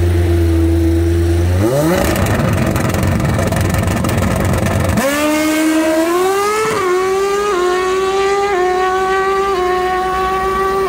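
Drag-racing motorcycle engine held at steady revs, then revved up into a launch with a loud rough stretch of a few seconds, then pulling hard down the strip with its pitch climbing and dipping briefly at each of about four gear shifts.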